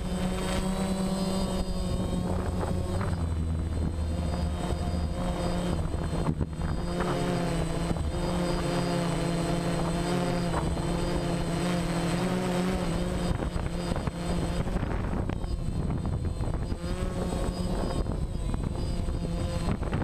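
Remote-control helicopter's motor and rotor running steadily, heard close up from a camera mounted on the helicopter: a constant drone with several tones that waver slightly in pitch as it flies.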